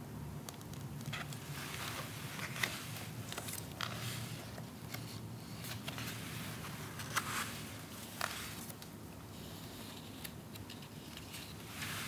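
Paper pages of a softcover photobook being turned by hand: a scattering of brief paper rustles and flicks as pages are lifted and laid over.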